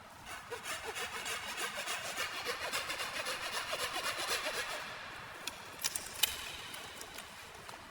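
Hand saw cutting wood in quick rhythmic strokes, about four or five a second, which stop after about five seconds; a few sharp clicks follow.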